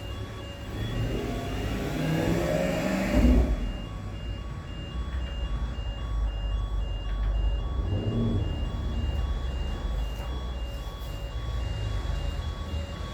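A motor vehicle's engine rumbling, rising in pitch and loudest about two to three seconds in, with a smaller swell about eight seconds in, over a steady train of short repeated beeps.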